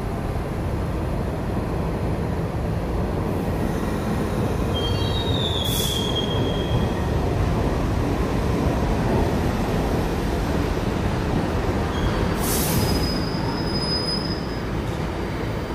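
New York City subway train running through the station with a steady rumble of wheels on rails. Its wheels squeal twice, about five seconds in and again near the end, each time with a short burst of hiss.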